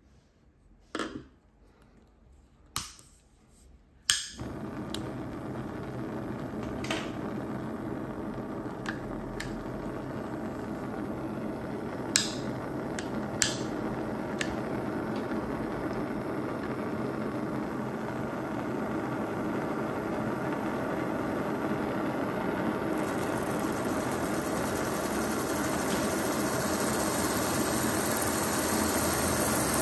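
A butane lighter clicks a few times, then the gas burner of a 16-cylinder swashplate Stirling engine model lights with a sharp pop and settles into a steady hiss. A couple of sharp clicks follow, and the sound grows slowly louder as the heated engine starts turning and speeds up.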